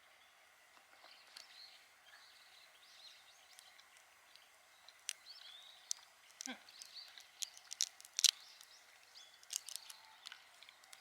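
Faint bird chirps, then from about halfway a run of sharp, irregular clicks and cracks, loudest a little past the middle.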